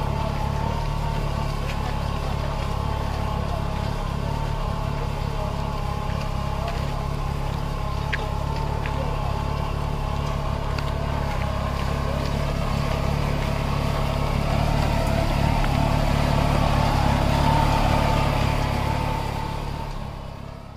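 Kubota B2441 mini tractor's three-cylinder diesel engine running steadily at working speed while it pulls a mulch-sheet laying implement through the soil. It grows a little louder late on, then fades out at the end.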